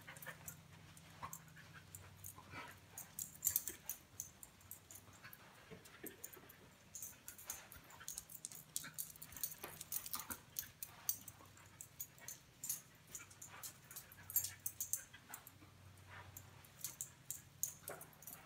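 A dog moving about and sniffing as it searches a room for a scent: many faint, scattered clicks and ticks from its nails and gear. A low steady hum runs underneath.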